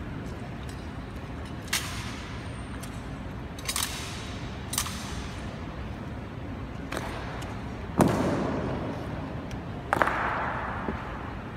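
Sharp clacks and thuds of an honour guard's rifle drill: rifles slapped and grounded and boot heels striking the stone floor. There are about six strikes spaced a second or two apart, and the last two are the loudest, each ringing out in a long echo off the marble hall.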